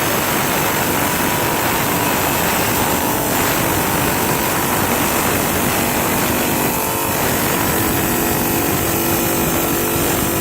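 Rubi DC 250 wet bridge tile saw running and cutting an Indian sandstone paving slab: a loud, steady motor whine with the gritty hiss of the water-cooled diamond blade grinding through stone.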